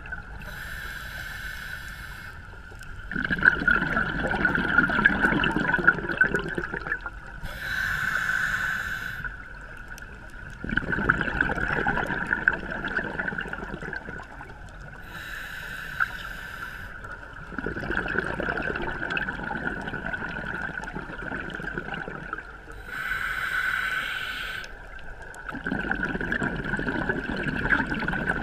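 A scuba diver breathing through a regulator underwater. Each breath is a short hissing inhale followed by a longer, louder rush of exhaled bubbles, repeating about every seven to eight seconds, four breaths in all. A steady high tone runs beneath throughout.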